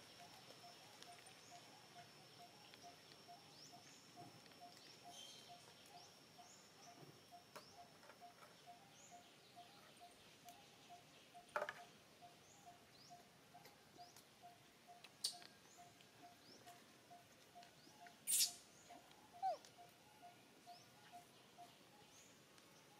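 Quiet outdoor ambience: a faint call repeating about three times a second, with scattered small chirps and a few sharp clicks.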